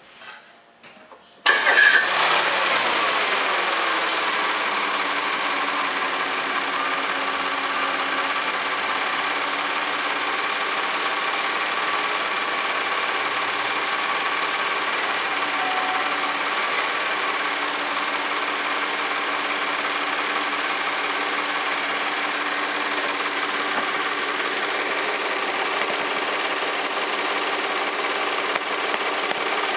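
Audi A4 3.2 V6 engine starting about a second and a half in, its revs dropping over the next couple of seconds, then idling steadily. The idle carries a heavy ticking, which the owner takes for valve ticking.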